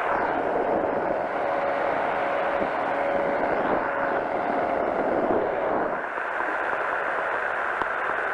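Powered parachute's engine and pusher propeller running steadily in flight, a continuous drone mixed with wind noise, easing slightly about six seconds in.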